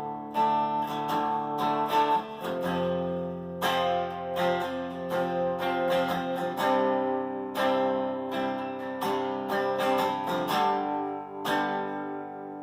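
Harley Benton TE-30 Tele-style electric guitar on its middle pickup setting, played clean and dry through a Marshall Origin amp head with no compression, reverb or tremolo. Chords are strummed repeatedly and left ringing, changing every few seconds.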